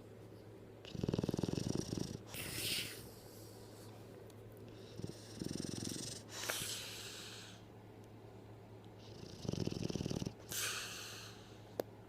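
A sleeping pet snoring, three breaths about four seconds apart. Each breath is a low, fluttering rattle followed by a breathy hiss.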